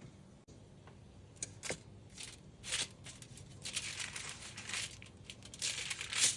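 Irregular crinkling and rustling of something being handled, in several short bursts and one longer stretch, loudest near the end.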